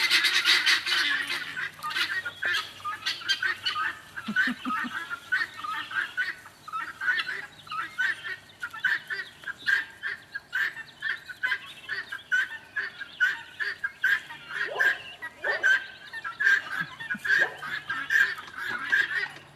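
A flock of domestic fowl calling over and over, with many short calls overlapping several times a second, loudest at the start.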